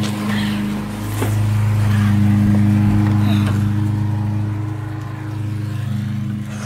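Loud, steady low machine hum with a constant pitch, like a motor running, easing slightly near the end.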